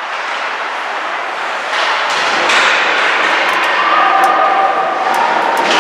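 Ice hockey play in a rink: sharp knocks of sticks, puck and boards over a wash of skating and arena noise that swells about two seconds in.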